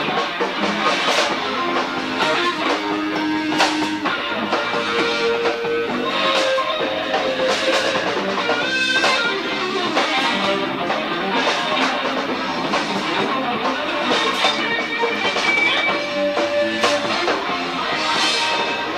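Live band playing an instrumental passage: guitar out front over bass guitar, drum kit and bongos.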